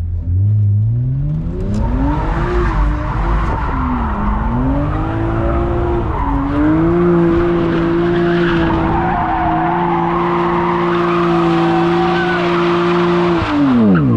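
Car engine revved hard, rising and dipping for a few seconds and then held high and steady while the tyres squeal through a spin; the revs drop away near the end.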